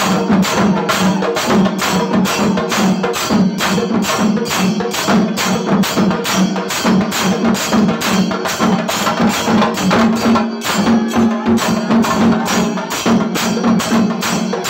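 Chenda melam: a group of Kerala chenda drums beaten with sticks in a fast, continuous, even rhythm, over a steady low drum tone.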